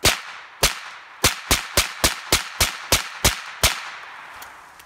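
Suppressed semi-automatic pistol firing eleven shots: two spaced shots, then a quick string at about three to four shots a second. Each shot is a sharp report that rings off into an echo.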